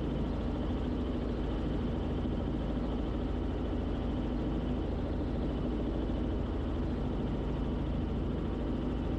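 Robinson R44 Clipper II helicopter in cruising flight: a steady, unchanging drone of engine and rotors with a low hum.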